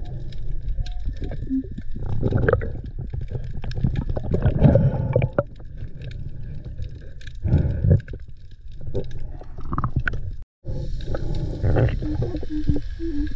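Muffled underwater sound from a camera on a diver's metal detector: a low rumble with scattered knocks and clicks as the detector and hands move over pebbly seabed. The sound drops out for an instant a little after ten seconds, and a few short low tones sound near the end.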